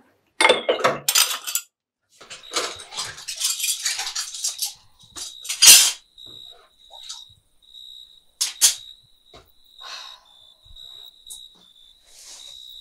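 Ceramic cups and plates clattering and knocking together in a plastic washing basin as they are washed by hand, in bursts. There is a sharp knock about six seconds in and another just before nine seconds. A faint, high, steady tone comes and goes in the second half.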